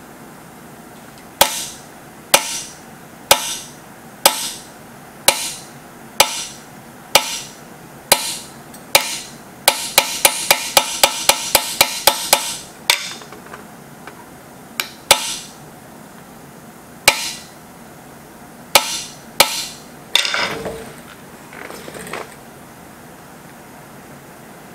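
Hammer striking a steel punch held on a rivet pin in a wooden knife-handle scale, on a steel bench plate. Sharp metallic blows come about once a second, then a quick run of about five taps a second near the middle, then a few more scattered blows and a short shuffling noise near the end.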